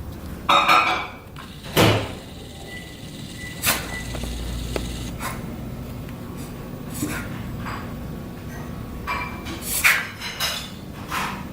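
A dog sneezing over and over: a string of short, sharp sneezes, loudest in the first two seconds and again near the end.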